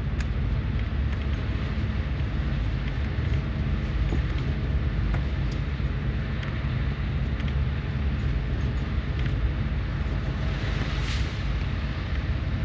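Highway coach heard from inside the cabin while driving through city streets: a steady low engine and road rumble with small rattles. About eleven seconds in comes a short hiss of air.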